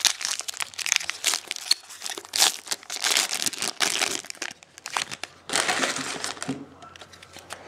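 Foil wrapper of a Topps football card pack crinkling and crumpling in the hands as it is torn open and pulled off the cards. The crackling is dense and thins out near the end.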